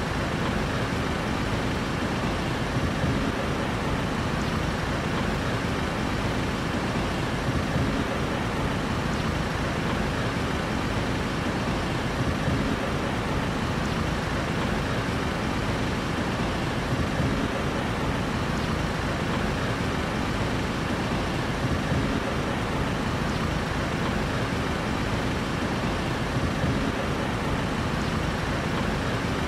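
Steady city street traffic noise: an even rumble of vehicle engines and road noise, with no single event standing out.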